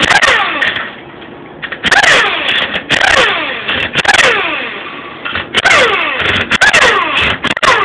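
Handheld power wrench run in about six short bursts, its motor whirring and winding down in pitch after each trigger pull, backing bolts out of a Ford A4LD transmission's valve body.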